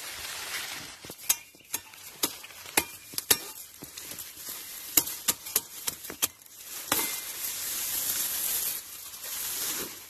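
Dry corn and sugarcane leaves and stalks rustling and crackling as someone pushes and pulls through them. A quick run of sharp snaps in the first part gives way to a steady rustling hiss from about seven seconds in.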